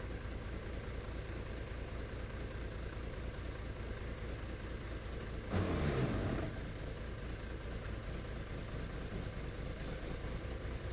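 Diesel truck engine idling with an even low pulse. About halfway through comes a brief, louder surge with a falling pitch.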